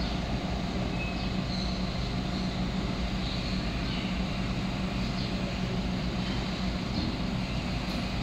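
Steady low engine drone with an even hum, unchanging throughout.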